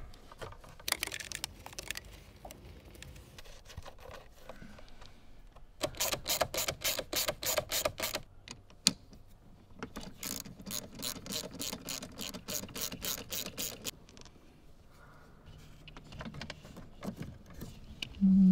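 Socket ratchet clicking in rapid runs as it turns a terminal nut on the 8-gauge battery ground cable: one run of about six clicks a second for a couple of seconds, then a second, softer run of about four seconds.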